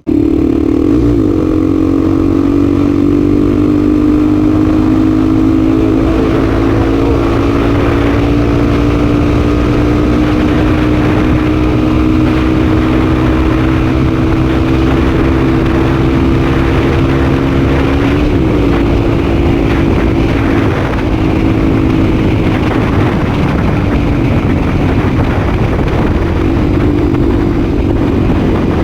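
Honda Tornado's single-cylinder four-stroke engine running loud at high, nearly steady revs, its pitch holding almost level with a slow slight drop and a brief wobble about 18 seconds in.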